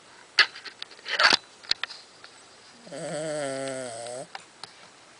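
A sleeping dog snoring. There are two sharp snuffling snorts in the first second and a half, then about three seconds in a long snore with a wavering hum that lasts over a second.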